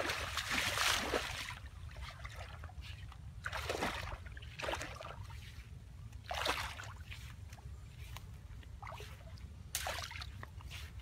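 Water splashing and sloshing in irregular bursts a few seconds apart, strongest at the start, over a steady low rumble.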